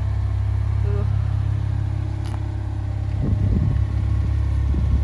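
Lexus IS 200t's turbocharged 2.0-litre four-cylinder running at a steady idle. About three seconds in, an uneven low rumbling joins it.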